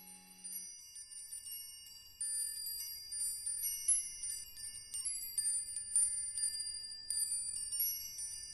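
Soft outro music of high, tinkling chime notes, many short ringing notes overlapping one another. A held low note from the end of the song dies away within the first second.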